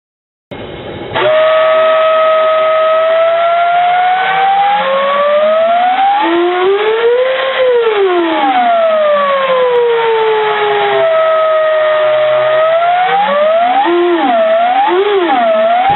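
Homemade steam whistle blowing after a brief hiss of steam at the start. Its tone glides slowly up in pitch and back down, then swoops up and down three times quickly near the end as its tuning piston is moved.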